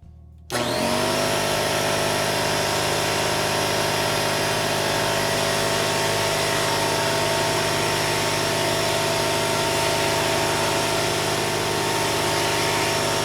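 Ridgid 6-gallon oil-free pancake air compressor starting up suddenly about half a second in and running steadily, loud, with a little whistling from the open drain valve. It is pumping with the drain valve open and no pressure in the tank, as the break-in run calls for.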